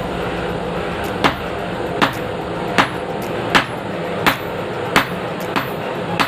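Blacksmith's hammer striking metal on an anvil, seven even blows about one every three-quarters of a second, each with a short ring, over a steady mechanical hum.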